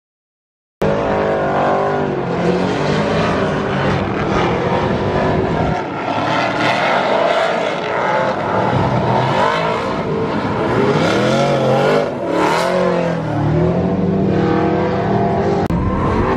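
Formula Drift cars drifting in tandem, engines revving hard with their pitch rising and falling as the drivers work the throttle through the corner. The sound begins abruptly just under a second in, after a moment of silence.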